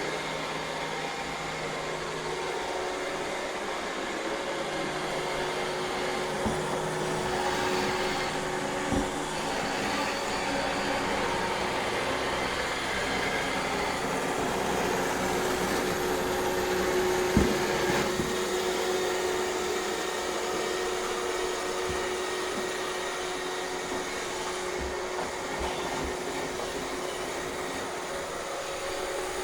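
iRobot Roomba 630 robot vacuum running steadily, its suction motor and brushes giving a continuous whirr with a steady hum. A few short knocks break in, the loudest about two-thirds of the way through.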